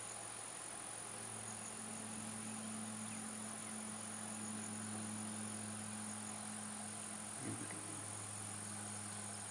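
Steady, high-pitched insect trill, with a low steady hum beneath it and a small brief sound near the end.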